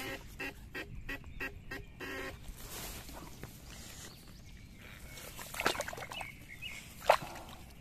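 Homemade LiPo-battery eel electroshocker buzzing in short, even pulses, about four a second, as its probes are held in the paddy water; the buzzing stops about two seconds in. Then rustling in the soil and a sharp click near the end, the loudest sound.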